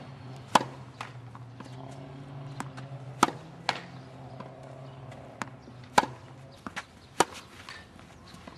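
Tennis balls struck by a racket: five sharp pops a second or more apart, with fainter knocks between them, likely bounces on the court. A steady low hum sits underneath and fades out about six seconds in.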